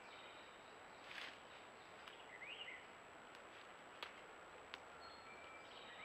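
Faint woodland birdsong: a songbird singing a short phrase of a high note, a lower note and a rising-falling slurred note, once about two seconds in and again near the end. A brief rustle and a few faint sharp clicks sound in between, over a steady hiss and a thin constant high tone.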